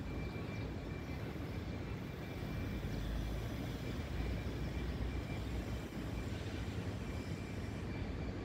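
City street ambience: a steady low rumble of traffic, swelling slightly about three to five seconds in, with a faint thin high-pitched whine on and off.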